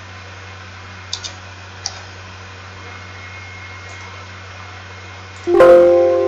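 Windows system alert chime, rung as a warning dialog box pops up: a sudden chord of several tones about five and a half seconds in that fades away. Before it, a few computer clicks over a steady low hum.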